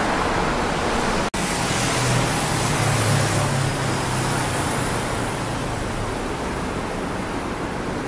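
Steady city road-traffic noise, with a low hum swelling for a few seconds in the middle.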